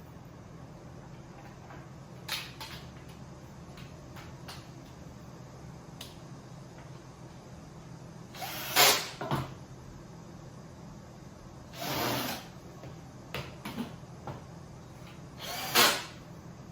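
Hands-on assembly noises as platform panels and screws are fitted: a few light clicks, then three louder short scraping knocks, near the middle, about three-quarters through and near the end.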